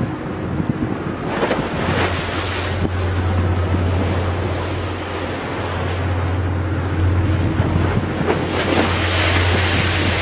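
Wind buffeting the microphone and the sea rushing on the open ocean, over a steady low hum; two louder gusts come about a second and a half in and near the end.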